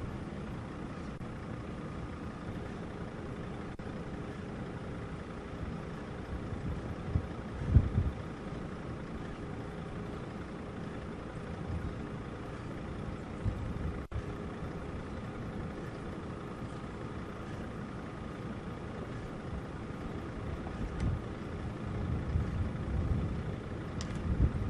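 Steady low rumble with a faint constant hum, like wind and engine noise on an outdoor news microphone. Low thumps of wind buffeting come about eight seconds in and again near the end.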